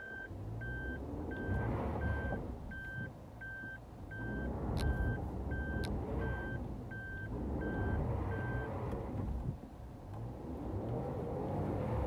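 Suzuki Jimny JB64's in-cabin reverse-gear warning beeper, beeping about one and a half times a second and stopping about nine seconds in, when the car comes out of reverse. Under it, the Jimny's 660 cc turbocharged three-cylinder engine runs, rising and falling as the car is driven on the dirt track.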